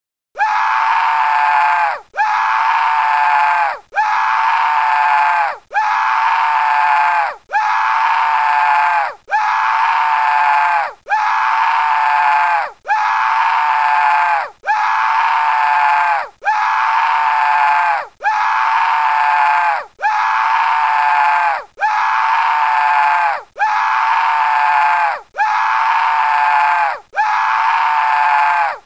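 A cartoon scream sound effect played over and over in a loop: the same high scream, each lasting under two seconds and dipping in pitch at its end, repeated about sixteen times with short gaps between.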